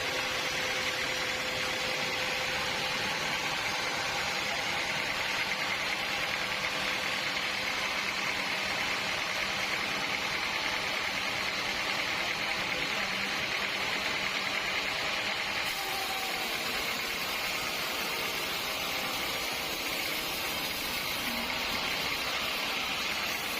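Sawmill machinery running steadily, an even hissing mechanical noise with no pauses.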